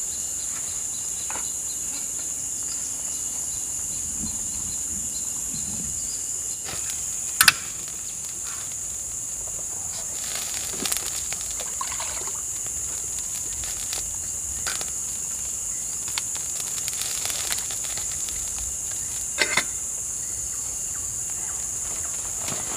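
Steady high-pitched chorus of insects, crickets or cicadas, with scattered short knocks and clicks; the loudest knocks come about seven seconds in and again near nineteen seconds.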